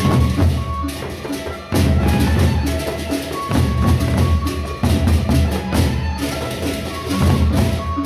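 Gendang beleq ensemble playing: large double-headed barrel drums beaten with sticks in dense interlocking rhythms, over bright cymbal clashing and a few held melodic notes. The drumming breaks off briefly twice, near two seconds and six seconds in, then comes back in.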